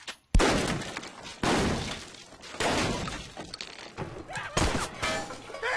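A series of loud revolver shots, five or six in a few seconds, each a sharp crack that rings out; the first is the loudest.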